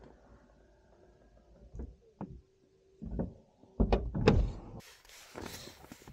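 Clicks, knocks and soft thumps from hands working controls and trim inside a car's cabin, loudest about four seconds in, followed by a stretch of even hiss.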